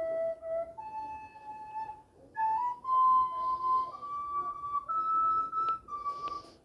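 Samsung GT-C3592 mobile phone ringtone playing a slow flute-like melody of long held notes that step mostly upward, with a short pause about two seconds in.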